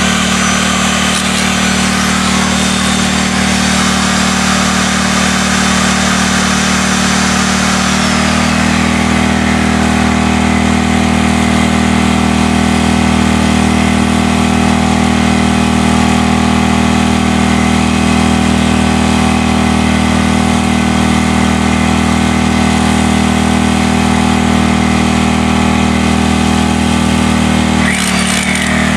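Electric hammer drill running steadily against concrete. Its tone shifts about eight seconds in, and it stops briefly just before the end.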